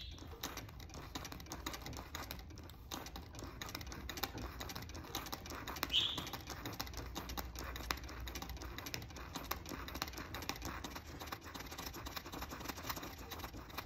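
Treadle sewing machine stitching free-motion, a steady run of rapid light clicks from the needle and mechanism as the hooped lace is guided by hand. A brief louder sound stands out about six seconds in.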